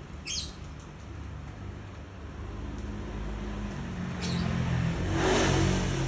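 A motor vehicle passing, its engine noise building from the middle and loudest near the end. A short sooty-headed bulbul call comes about half a second in, and a fainter chirp about four seconds in.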